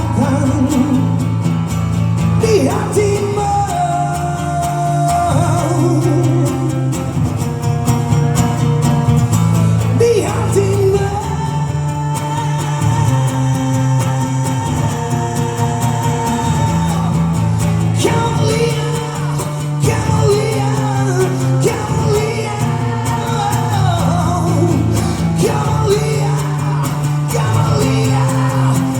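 A live band playing a pop-rock song, with singing over it.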